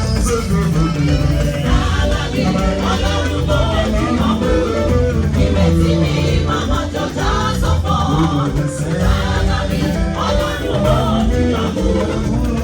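Yoruba gospel music played live by a band, with singing over a heavy, steady bass line.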